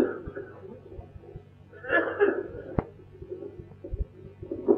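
A single short cough about two seconds in, with a few faint clicks around it.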